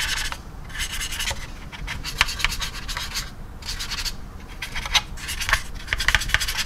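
A small paintbrush scrubbing over the surface of a plastic scale model, blending oil paint into the panel lines, together with fingers rubbing the plastic as it is held. It comes as a run of short, scratchy strokes, about one or two a second.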